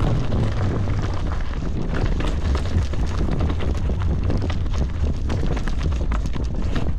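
Wind buffeting the microphone of a mountain biker's camera as a low rumble, over the steady rattle and clatter of the bike's tyres and chain on a rough, rocky descent.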